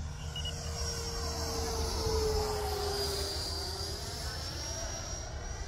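Electric ducted-fan RC jet taxiing at low throttle after landing, its fan giving a steady whine that sags a little in pitch and rises again near the end.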